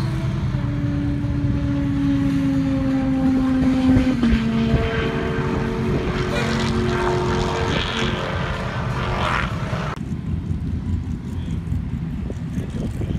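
A distant race car running at full speed down an airstrip runway, its engine a steady drone that sags slightly in pitch, then steps to a new note about four seconds in. About ten seconds in, the engine sound cuts off and only a low rumble of wind on the microphone remains.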